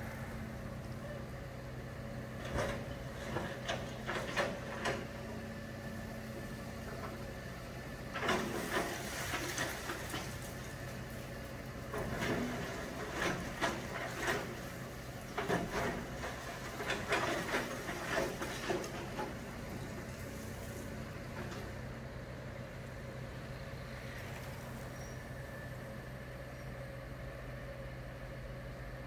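New Holland hydraulic excavator demolishing a concrete building. Its diesel engine runs steadily under four bursts of crunching and clattering as concrete and rubble break and fall. Near the end only the engine runs.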